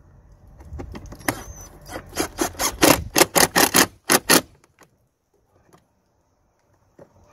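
Cordless drill-driver with a Torx bit running the screws of an air filter housing cover down tight, ending in a rapid run of sharp clicks, about five a second, that stops abruptly a little over four seconds in.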